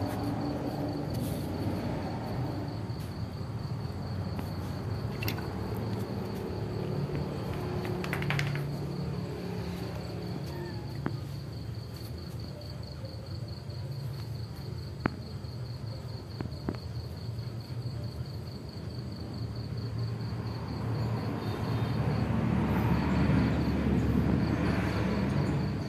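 Crickets chirping in a steady, rapidly pulsing high trill, with a few sharp clicks and a louder rustling noise near the end.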